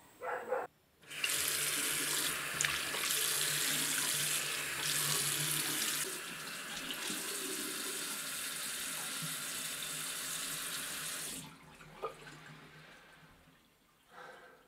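Bathroom tap running into a sink for about ten seconds, a little quieter after the first half, then shut off. A short knock follows soon after.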